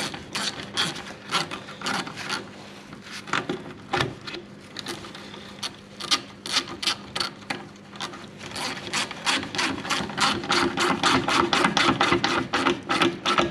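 Socket ratchet clicking as it tightens the worm-drive Jubilee clip on a radiator hose: scattered clicks at first, then a quick, even run of clicks over the last few seconds.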